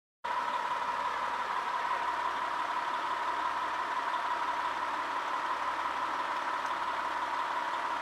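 Fire engine aerial ladder truck's diesel engine idling steadily, with a steady high whine over the rumble. The sound cuts in just after the start.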